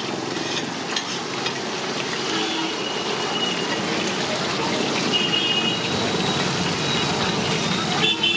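Large fish heads deep-frying in a wide pan of hot oil: a steady sizzling and bubbling.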